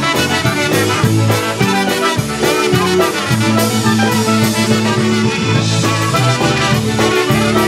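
Live polka band playing a brisk polka: trumpet and clarinet carry the melody over piano accordion, button accordion, electric bass and drums, with a steady oom-pah beat.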